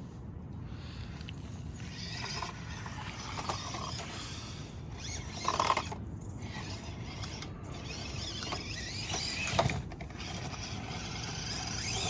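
Electric motor and gears of an Axial SCX24 1/24-scale RC crawler whirring as it drives and climbs, rising and falling with the throttle, with louder clatters about five and a half and nine and a half seconds in.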